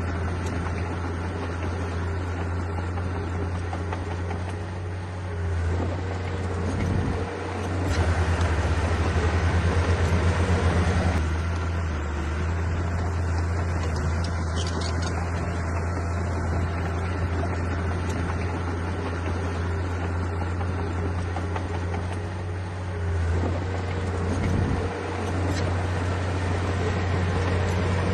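Diesel engine of a heavy earthmoving machine running steadily, growing louder for a few seconds about eight seconds in, then settling back.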